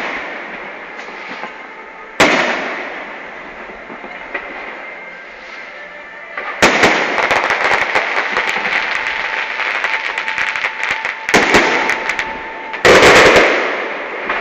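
Fireworks display: a shell bursts with a sharp bang about two seconds in, then from about six and a half seconds a long run of rapid crackling pops, and near the end a louder cluster of bangs, each bang trailing off in echo.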